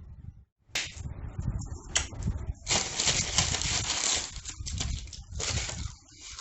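Someone eating chicken noisily, with crackly crunching, clicking and smacking sounds starting about a second in.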